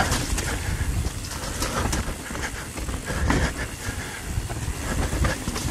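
Mountain bike rolling fast down a dirt singletrack: a steady low rumble from the tyres on the trail with frequent clicks and rattles from the bike. The rear tyre is flat, held up by a tyre insert.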